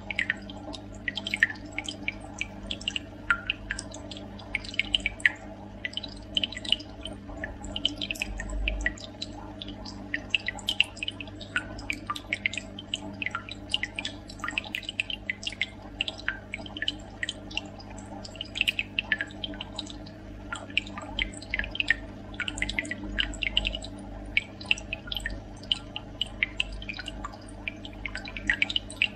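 Water in a reef aquarium trickling and dripping, with many small irregular splashes over a steady low hum.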